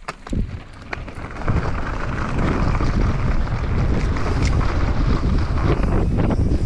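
Wind rushing over a GoPro's microphone and a mountain bike's knobby tyres rolling on a dirt trail, building over the first second or so as the bike gathers speed, then holding steady with scattered clicks and rattles.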